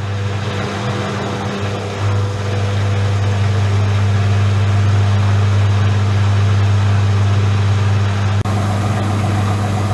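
Front-loading washing machine (Regal 8121, brushless DC drive) spinning up towards 600 rpm, with the drain pump's asynchronous motor giving a steady low hum over the drum noise. The sound gets louder about two seconds in as the spin speed rises.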